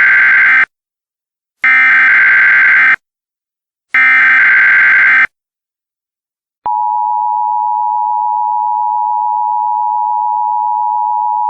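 Emergency Alert System SAME header: three loud bursts of digital data screech, each over a second long with about a second's gap, the first already sounding at the start. About a second after the last burst, the steady two-tone EAS attention signal begins, a little quieter than the bursts.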